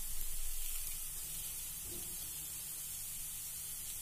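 Faint, steady sizzling hiss from a pan of chopped capsicum and ground peanut and sesame cooking over a gas flame.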